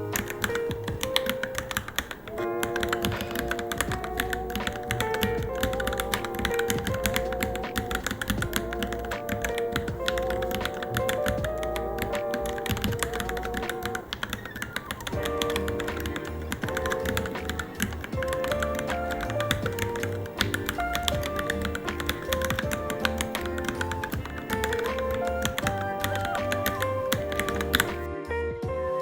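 Fast, steady typing on a Varmilo Minilo keyboard, many quick keystroke clicks, over background music with a melody and a steady beat. The typing stops near the end while the music continues.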